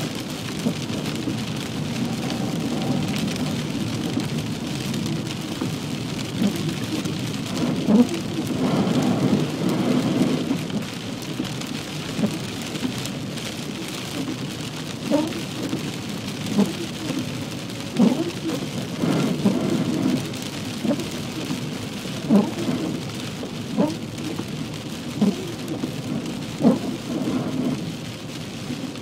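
Heavy rain on a car driving along a wet road, heard from inside the cabin as a steady rush with short knocks every second or two.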